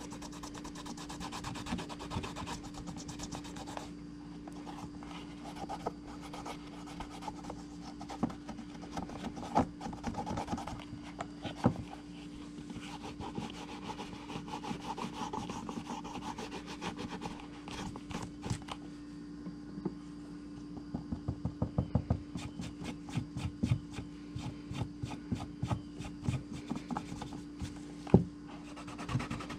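Leather sheath being rubbed by hand as cream is worked into it, a continuous scrubbing and rubbing. About two thirds of the way through it turns into quicker, sharper strokes.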